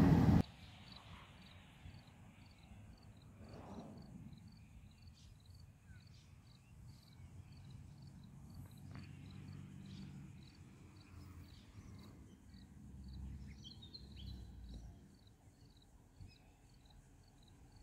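Loud truck noise cuts off about half a second in. Then comes quiet rural ambience: a high, evenly repeated insect chirp about twice a second over the faint low rumble of a distant side-loading garbage truck working and driving closer, loudest around two-thirds of the way through.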